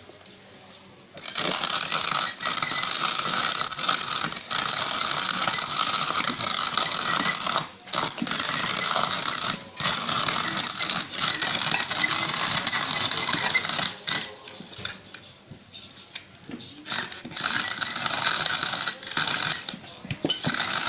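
Wooden box hand-crank coffee grinder grinding roasted coffee beans as the crank is turned, a continuous mechanical grinding rattle. It starts about a second in, with a few brief breaks and a quieter stretch about two-thirds of the way through.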